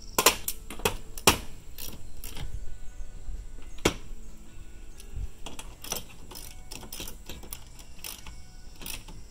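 Small socket ratchet clicking in short, irregular runs, with metal tools tapping, as set screws are tightened into the deck anchors of a stainless-steel pool ladder handrail.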